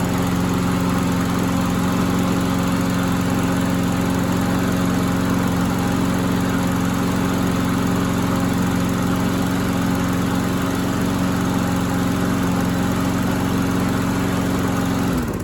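Troy-Bilt walk-behind lawn mower's single-cylinder engine running steadily at an even pitch, which the owner says runs pretty good after an oil change and new brake cable. Near the end it shuts off, the pitch falling as it winds down.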